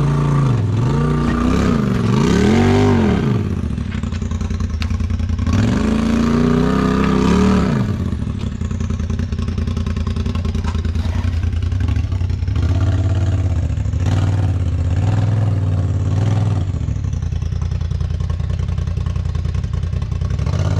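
Polaris RZR XP Turbo four-seat side-by-side's turbocharged twin-cylinder engine, revving up and back down twice in the first eight seconds while crawling over rocks. It then runs at lower revs with small blips of throttle.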